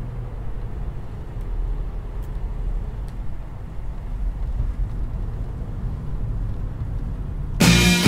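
Steady low rumble of a car driving. Loud rock music cuts in suddenly near the end.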